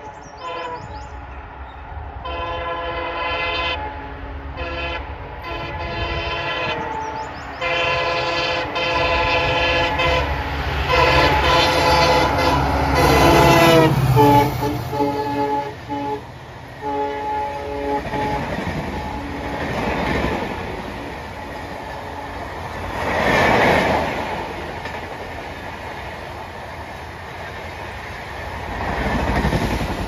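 WDP4B diesel locomotive, with its EMD two-stroke engine working hard, sounding its multi-tone air horn: several honks, then one long blast whose pitch falls as the locomotive passes. A few short horn notes follow, then LHB passenger coaches clatter past at speed, with swelling rushes of wheel and rail noise.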